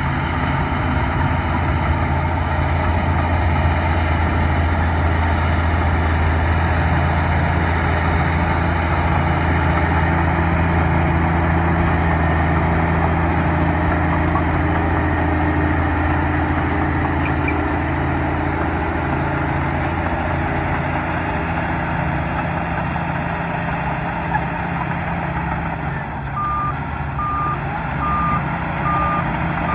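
Bulldozer's diesel engine running steadily under load. Near the end a reversing alarm starts beeping about twice a second as the machine backs up.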